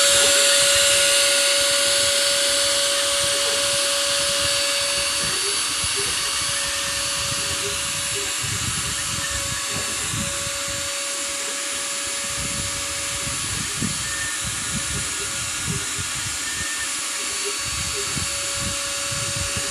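Small CNC machine running, its spindle motor giving a steady high hiss with a steady hum-like tone that drops out briefly now and then.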